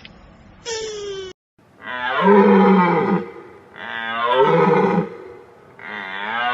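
Three long, loud, roar-like calls from a large wild animal, about two seconds apart, each swelling and then fading. Before them, a short high call that falls in pitch cuts off just over a second in.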